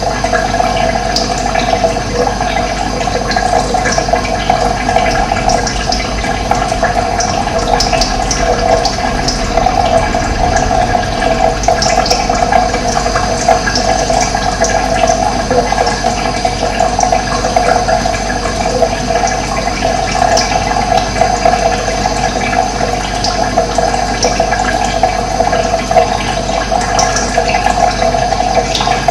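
Steady rushing of running water, with short high bird chirps here and there.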